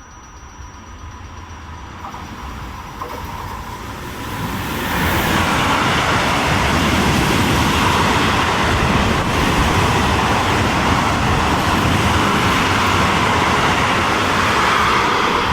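A train approaching and running through the station: a rushing noise that builds over about the first five seconds and then holds loud and steady.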